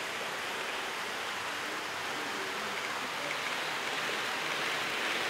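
Steady, even rushing noise of a model railway layout room, with N-gauge trains running on the track.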